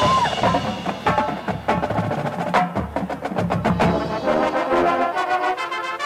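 Marching band music: a percussion-led passage of rapid, sharp hits over pitched notes, with held brass chords growing fuller near the end.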